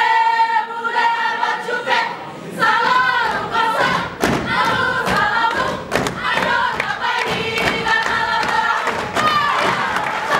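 Saman dance: a row of kneeling dancers singing together in unison while slapping their bodies and clapping in time, the sharp slaps growing denser about four seconds in.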